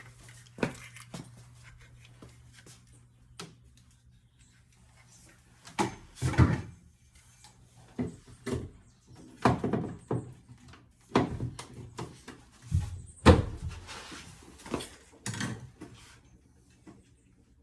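Irregular knocks, clatters and rattles of hard objects being picked up, moved and set down, about a dozen of them, most in the second half.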